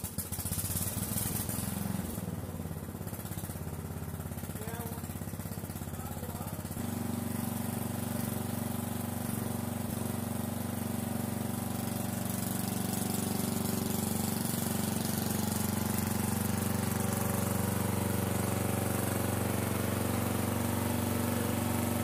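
Early-1970s Simplicity Regent lawn tractor's swapped-in Craftsman 12 horsepower engine running steadily, then shifting to a higher, louder running note about seven seconds in.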